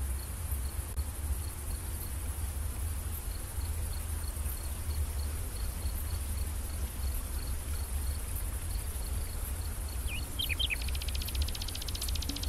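Nature ambience of insects: a steady high buzz and a short chirp repeating about three times a second, over a low rumble. Near the end come a few short bird-like calls, then a fast trill.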